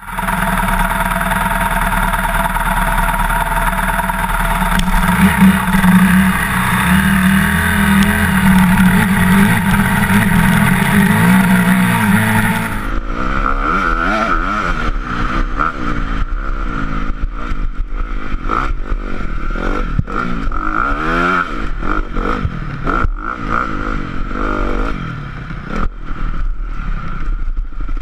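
Honda CRF motocross bike's single-cylinder four-stroke engine being ridden hard on a dirt track. The engine note is fairly steady for the first half, then after a change about halfway through the revs rise and fall again and again as the rider works the throttle and gears.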